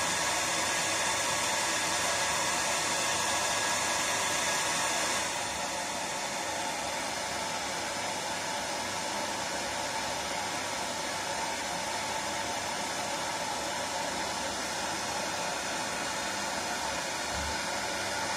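Electric hair dryer running with a steady rushing hiss and a faint whine. About five seconds in, the sound drops slightly and the whine disappears, leaving an even hiss.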